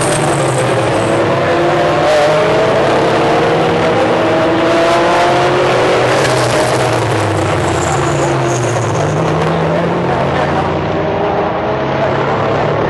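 Several GT-class race cars accelerating hard out of a corner. Their engine notes overlap and climb in pitch one after another, loud and without a break.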